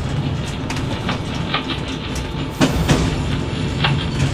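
Narrow-gauge diesel railcar running slowly, heard from inside its cab: a steady low engine and running rumble with wheels clicking over the rail joints. A couple of sharper knocks come about two and a half seconds in.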